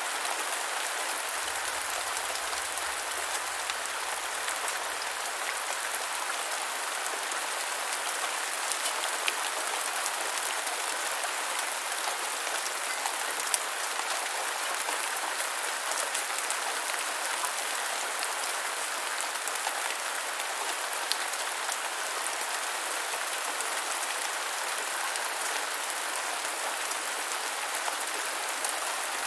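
Steady light rain: an even hiss of rainfall with scattered individual drops ticking.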